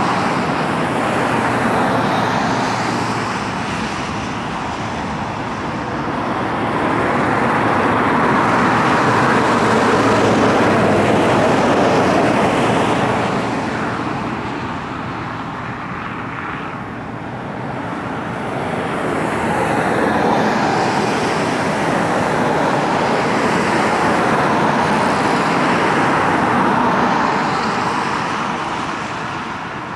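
Jet noise of a Cessna Citation XLS's twin turbofans at takeoff power, a steady rushing sound that swells and then fades as the jet rolls away down the runway. Over the second half the noise swells again as a United Boeing 757-200 taxis up close.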